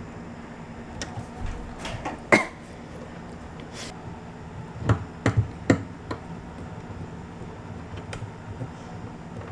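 Scattered knocks and clicks of furniture parts being handled and fitted together during flat-pack drawer assembly, with a louder knock about two seconds in and three close knocks about five seconds in, over a steady low hum.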